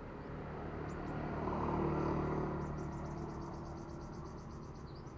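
A passing motor vehicle: its engine and road noise swells to a peak about two seconds in and then fades. Faint high-pitched chirps sound over it, with a quick trill of about ten notes a second in the middle.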